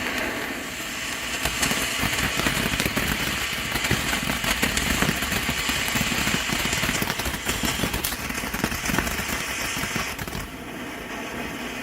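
TNT Fireworks 'Rootin Tootin' ground fountain burning, a steady hiss with dense crackling. It dies down about ten and a half seconds in.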